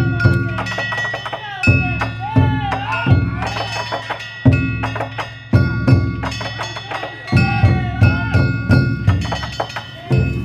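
Danjiri festival music (narimono): a large taiko drum struck hard in repeated groups of beats, over the steady ringing of kane hand gongs.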